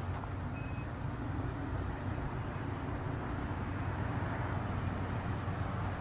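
Steady low rumble of road traffic, with a short, faint high tone about half a second in.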